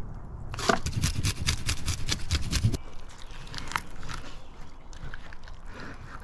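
Fish being scaled with a blade: a quick, rhythmic run of scraping strokes, several a second, for about two seconds, then a few softer scrapes and knocks.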